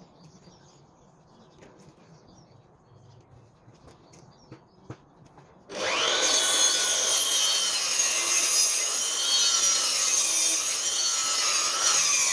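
Makita sliding mitre saw starting up about halfway in and cutting through a timber sleeper: a loud motor and blade whine whose pitch dips and wavers as the blade bites into the wood. Before it, only a couple of faint clicks.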